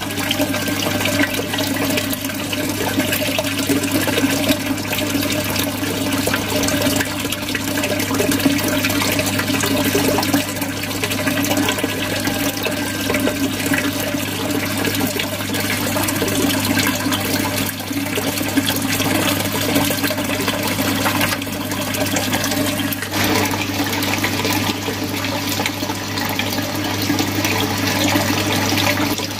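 Aquarium filter outflow splashing and gurgling steadily into shallow tank water, the falling streams churning up bubbles, over a steady low hum.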